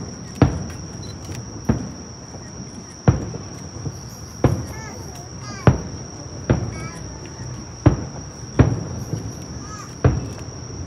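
Distant aerial firework shells bursting: a sharp bang about every one to one and a half seconds, each with an echoing tail. A steady high-pitched chirring of insects runs underneath.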